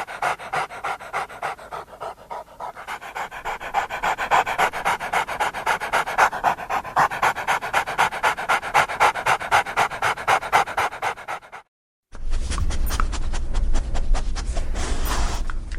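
A dog panting fast and evenly, several breaths a second. About twelve seconds in it breaks off, and after a brief gap panting goes on over a low rumble.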